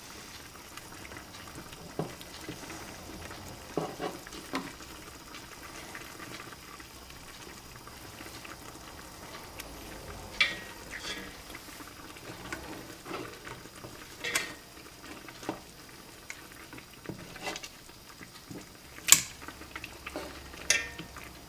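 Tongs clicking and knocking against a large cooking pot as lamb shanks are turned over one at a time, with the loudest knock near the end. Under it, a soft steady simmer of yogurt gravy on low heat.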